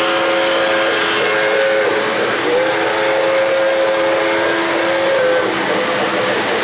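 An O-gauge model steam locomotive's electronic whistle blows two long, steady chime blasts, the second one longer, over the continuous rumble of model freight trains running on three-rail track.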